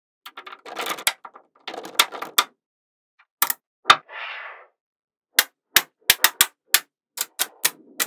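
Small magnetic balls snapping together one after another: sharp, irregular clicks, with a few short hissing noises in between.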